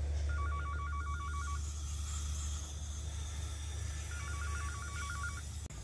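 A phone ringing: two bursts of a fast warbling two-tone trill, each about a second long, the second about four seconds after the first, over a steady low hum that cuts off just before the end.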